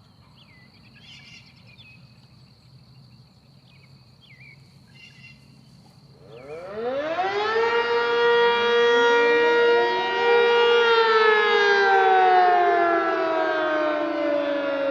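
Sentry 10V electromechanical outdoor warning siren on test, sounding a very short alert: about six seconds in it winds up with a steeply rising pitch, holds a steady tone for a few seconds, then winds down with a slowly falling pitch.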